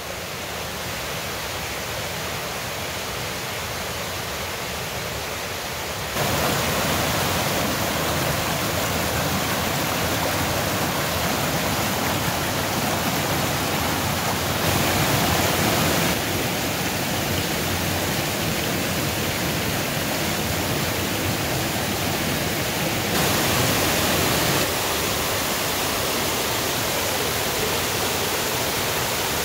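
Steady rush of a mountain creek pouring over rocky cascades and a small waterfall, Gage Creek and Gage Creek Falls. Its loudness and tone jump suddenly several times.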